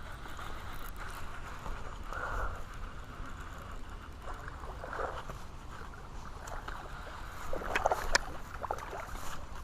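A hooked bass splashing at the water surface as it is reeled in. There are short splashes about two and five seconds in, and a louder cluster of splashing and sharp clicks near the end, over a steady outdoor hiss.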